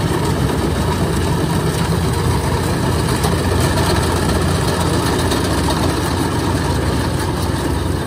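Kubota DC-105X rice combine harvester running steadily under load as it cuts and threshes rice, its diesel engine and threshing machinery giving an even, unbroken sound.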